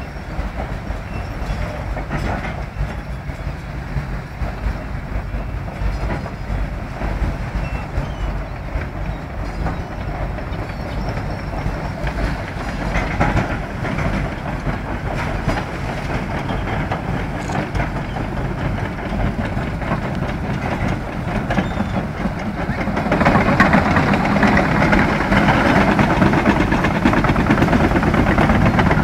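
Tracked lifeboat launching tractor and carriage rumbling and clattering steadily down a concrete slipway. About three quarters of the way through it gets louder, with a rushing wash added as the carriage runs into the sea.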